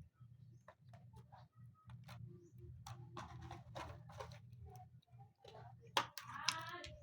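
Slime being squeezed and worked by hand, giving off irregular quick clicks and crackles, with one sharper click about six seconds in.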